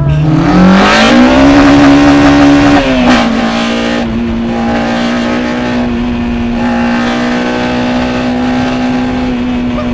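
Honda K20 four-cylinder on individual throttle bodies heard from inside the cabin, revving hard under acceleration with a steeply rising note over the first second or so. About three seconds in the note drops slightly and the engine settles into a steady, quieter run.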